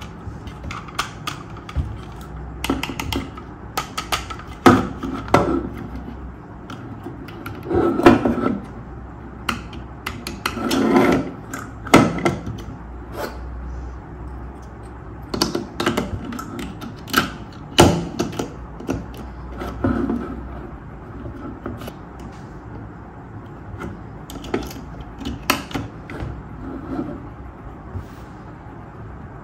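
Plastic Paw Patrol Chase toy monster truck being handled on a tabletop: irregular clicks, taps and knocks of its plastic parts, with a few short stretches of rubbing and rattling as a figure is fitted into the cab.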